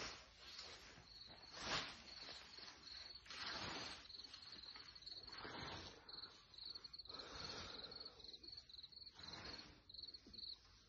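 Faint swishes of a freshly whetted scythe cutting through tall grass, one stroke about every two seconds, over steady chirping of crickets in the meadow.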